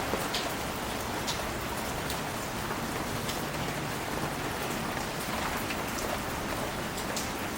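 Steady rain falling on leaves and ground, a continuous hiss with scattered individual drops ticking through it.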